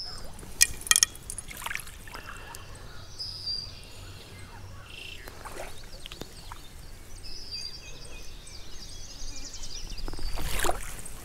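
Songbirds singing over quiet river ambience, with small water sounds and a louder splash near the end as a hooked fish is drawn into a landing net.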